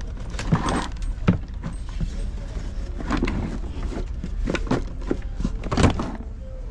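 A tangle of USB cords being handled, the plastic plugs and connectors clacking and rattling against each other in several short bursts, the loudest near the end, over a steady low rumble.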